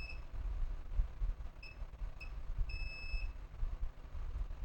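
Electronic beeping at a single high pitch: three brief beeps and then a longer beep of about half a second, over a low background hum.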